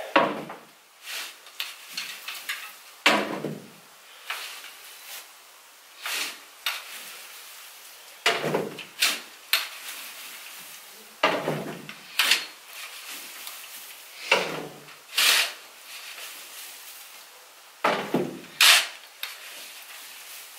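A manure fork scooping and tossing wood-shaving bedding while a horse stall is mucked out: repeated rustling scrapes and swishes every one to three seconds, some coming in quick pairs.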